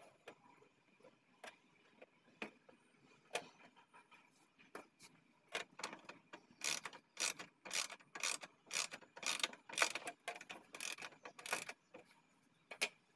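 Hands of an old mechanical wall clock being turned with the fingers to set the time: sharp clicks from the movement, scattered at first, then coming about twice a second through the second half.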